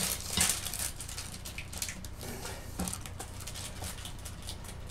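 Small clicks and taps of wooden-handled clay sculpting tools being picked up and put down on a desk, the loudest near the start, over a steady low hum.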